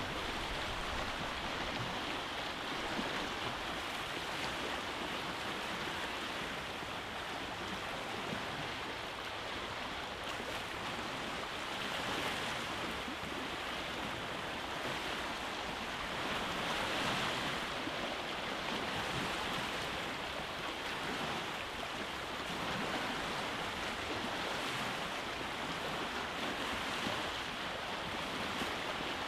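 Surf on a rocky beach: a steady rushing wash of waves breaking and running back over rocks, swelling a little every few seconds.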